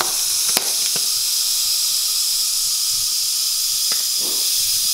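Steady hiss of gas rushing from a tilt-valve balloon inflator into a foil Orbz balloon as it fills out toward full, with a few short clicks along the way.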